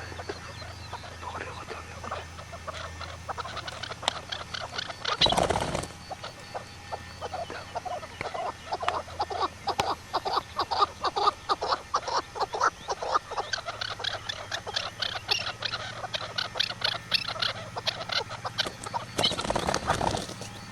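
Birds calling in a rapid, dense stream of short calls. Two loud rushing bursts of noise break in, one about five seconds in and one near the end.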